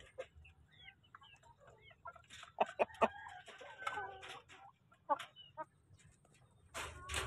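Basilan native chickens clucking, with short high chirps early on and louder clucks from about two and a half seconds in.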